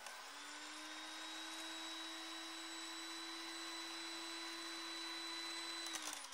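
A small electric motor whirring at a steady pitch with a hiss over it, like a power tool running. Near the end a click, and the motor starts to wind down in pitch.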